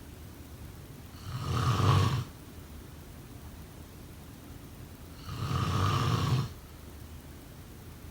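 A sleeping person snoring: two snores, each about a second long and about four seconds apart.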